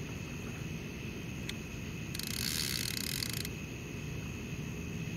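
A fishing reel's bait clicker buzzing for about a second and a half, about two seconds in, as a fish pulls line off, over a steady low rumble. It is the sign of a small catfish mouthing the bait without taking hold.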